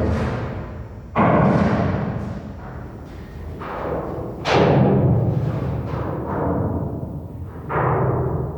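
Heavy metal impacts booming through a steel ship's hull, about four of them, each ringing out with a long reverberant decay over a steady low hum.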